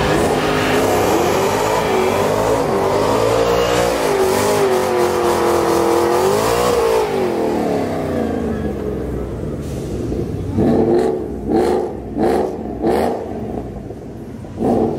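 Ford Mustang doing a smoky burnout: the engine is held at high revs, with its pitch wavering up and down for about eight seconds. It then gives a run of short, sharp revs about once a second near the end.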